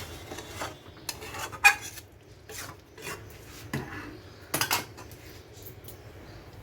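A metal spoon scraping and clinking against cookware, with a few sharp knocks, the loudest about a second and a half in and a pair near the middle.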